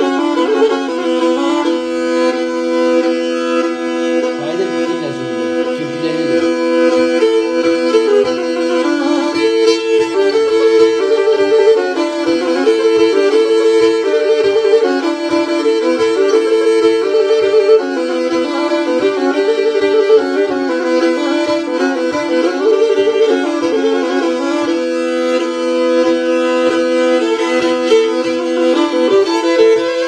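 Black Sea kemençe playing a horon tune, bowing two strings together so one line sounds against a steady second note, with a faint regular beat underneath.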